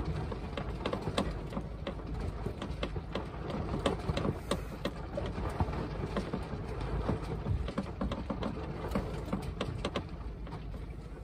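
Wind on the microphone and water rushing along a sailboat's hull under way: a steady rushing noise full of small crackles and splashes.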